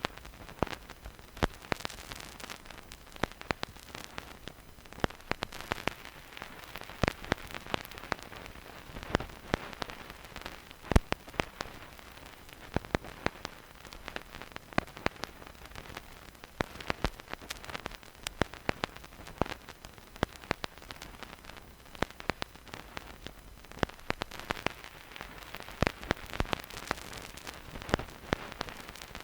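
Vinyl record surface noise with no music: a steady faint hiss under irregular crackles and pops of the needle in the groove.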